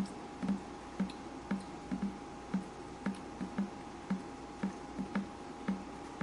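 Water dripping steadily, about two drops a second, each a short plop, with a faint steady tone underneath.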